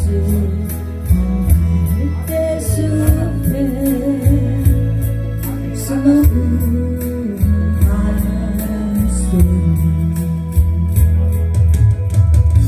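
Korean trot song accompaniment: a backing track with a steady bass and drum beat under a wavering melody line.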